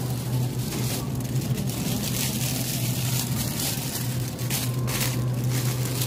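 Supermarket ambience: a steady low hum, with plastic wrapping crinkling in short patches as a bagged bunch of celery is handled and put in the shopping cart.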